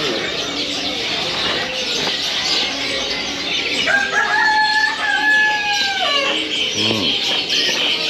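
A rooster crows once about four seconds in: a long call of about two and a half seconds that holds its pitch, then drops at the end. Under it, many small caged birds chirp constantly.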